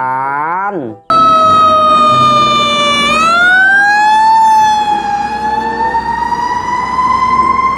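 Fire truck siren wailing. Its pitch sinks a little, rises over about a second around a third of the way in, then keeps climbing slowly.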